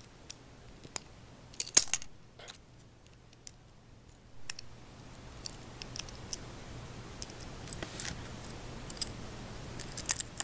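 Small plastic Lego pieces clicking and snapping as they are pulled apart and pressed back on, a piece being taken off and refitted. The loudest cluster of clicks comes about two seconds in, with lighter scattered clicks later.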